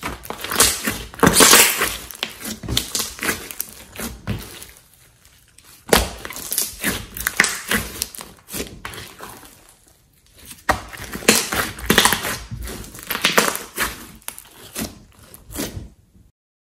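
Hands squishing, pressing and poking a large mass of thick clay-mixed slime, its trapped air popping and crackling in quick wet clicks. It comes in three stretches of squeezing with short quieter pauses between.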